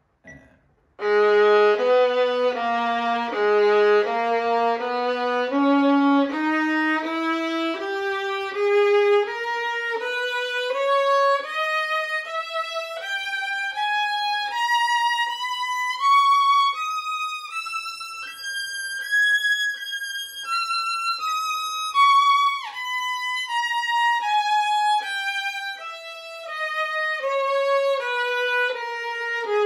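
Violin playing a three-octave G-sharp harmonic minor scale in separate bows, one even note per beat at 80 bpm. It starts about a second in, climbs from the low G-sharp to the top octave about two-thirds of the way through, then comes back down.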